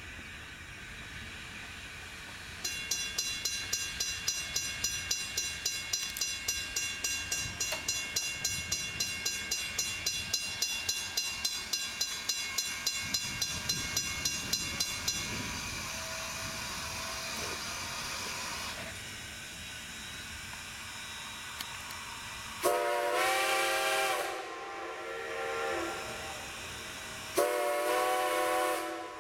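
Strasburg Rail Road No. 90, a 2-10-0 steam locomotive, working hard with rapid exhaust chuffs, about four a second, over a steady steam hiss; after about twelve seconds the chuffing stops and the hiss runs on alone. Near the end its steam whistle blows twice as a chord of several notes, a longer blast and then a shorter one, with a faint echo answering the first.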